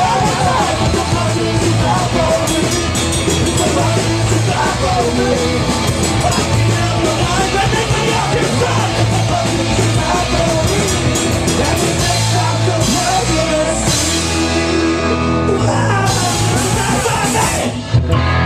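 A live punk rock band with hillbilly country undertones playing loud, with shouted singing over the full band. The song stops suddenly on a final hit near the end.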